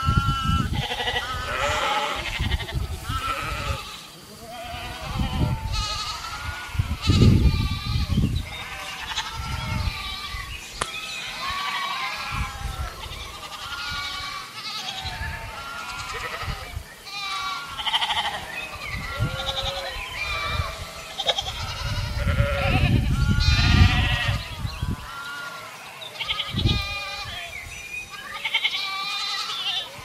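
A pen of goats and sheep bleating, many overlapping calls one after another, with low rumbles at times.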